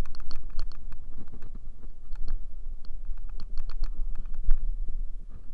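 Riding a motor scooter: a steady low rumble of wind buffeting and road noise, with many quick, irregular clicks and rattles over it.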